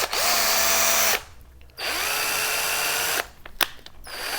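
Deli DL-DZ12-5A2 cordless screwdriver run three times in short bursts, each time spinning up with a rising whine, then running steady. It is a test run of the screwdriver with its replacement 3/4-24 UNF chuck.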